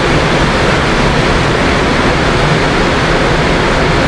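Steady, loud rushing noise that stays even throughout.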